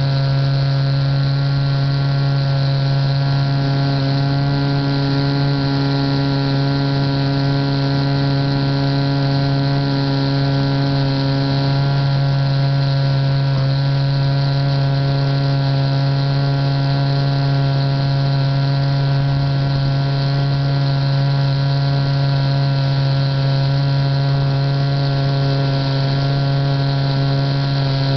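Steady drone of an RC model airplane's motor and propeller in flight, heard from a camera mounted on the plane, holding an even pitch throughout.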